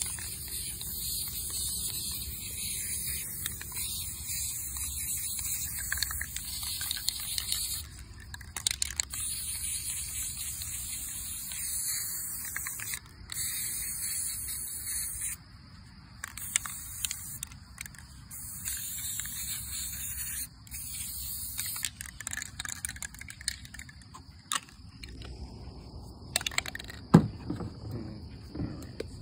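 Aerosol spray paint can spraying in long hissing bursts with short breaks between them, until it stops about 25 seconds in. A few sharp clicks follow near the end.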